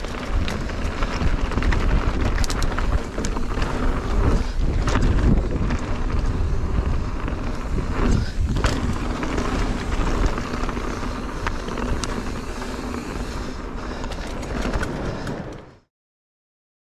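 Mountain bike riding: tyres rolling over the trail with wind buffeting the camera microphone and scattered short rattles and knocks. It cuts off suddenly near the end.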